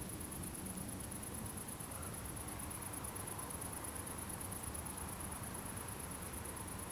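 Steady background hiss with a high-pitched, evenly pulsing whine over it; no thunderclap or other distinct event.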